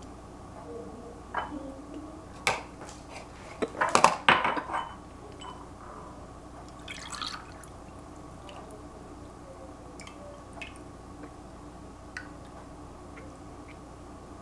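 Kitchenware clinking and knocking on a tiled counter, a cluster of knocks about four seconds in, then milk poured from a pan into a glass jar, with a few faint ticks after.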